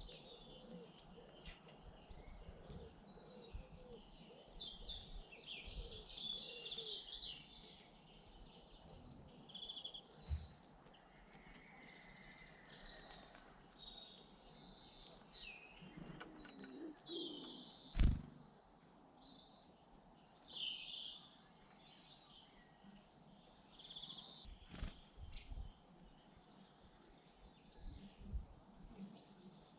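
Small garden birds chirping and calling, with many short, high notes overlapping throughout. A single sharp knock comes a little past halfway, and a fainter one follows a few seconds later.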